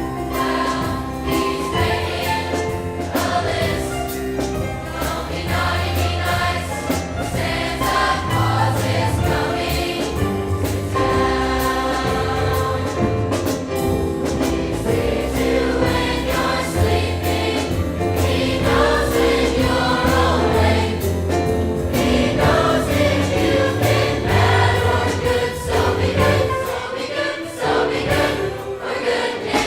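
A large high school choir singing a Christmas song with instrumental accompaniment, steady and full throughout.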